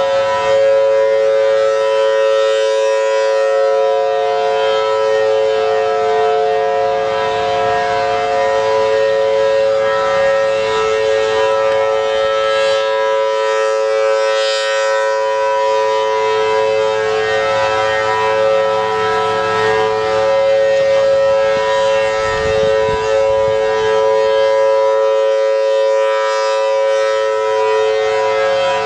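Federal Signal Thunderbolt 1000T siren, its 4/5-port rotor sounding a steady two-note chord while the horn rotates, so the sound swells and fades slightly as it sweeps round. This is a scheduled siren test.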